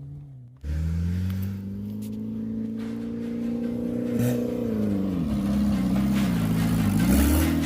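Ford Ka rally car's engine under throttle, starting suddenly about half a second in, its pitch climbing steadily for a few seconds, then dropping and rising again several times near the end.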